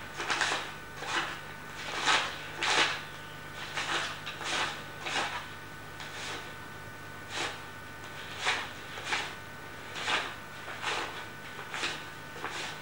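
Hands repeatedly rustling and crinkling a small light item, in short irregular strokes about once a second, over a faint steady hum.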